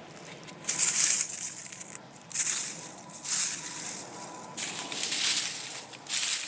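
Soil being dug and turned over while searching for potatoes: about five gritty, crunching scrapes, each under a second or so, with short pauses between them.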